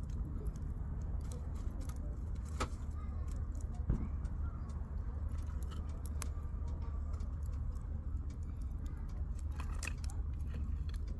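Firewood burning in a campfire, crackling with irregular sharp snaps and pops, a few louder ones scattered through, over a low steady rumble.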